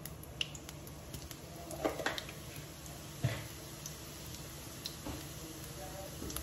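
Cumin seeds frying in hot ghee in a steel kadhai: a faint steady sizzle with a few small sharp pops scattered through it.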